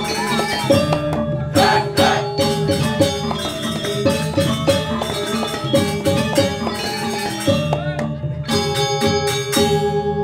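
Balinese gamelan playing: fast runs of struck metal keys that ring on, with drum strokes underneath.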